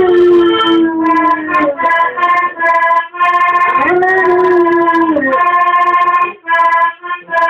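Weimaraner howling along to music: two long howls, each rising, holding and sliding down in pitch, over an instrument playing sustained chords that stop and start.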